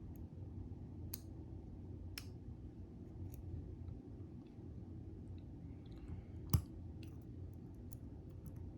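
Small sharp clicks and taps of pins, springs and tools being handled while pin stacks are loaded back into a plastic door-lock cylinder. There are a few spaced clicks, one louder knock past the middle, then a quick run of light ticks near the end, over a steady low hum.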